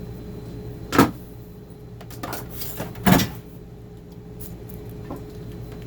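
Two sharp knocks about two seconds apart, with a few lighter clicks between and after, as hard objects are handled and set down, likely tools being got out to solder. A steady low electrical hum runs underneath.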